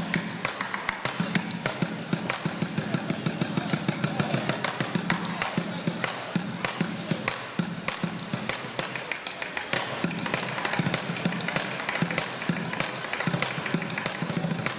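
Rapid repeated knocking, many sharp taps a second, with no pause.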